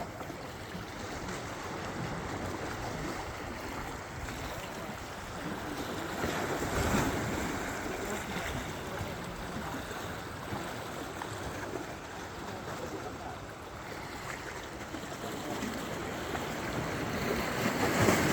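Steady rushing of wind and sea water, swelling louder about seven seconds in and again near the end.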